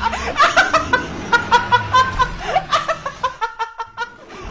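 A person laughing hard in quick, high-pitched bursts, several a second, easing off near the end.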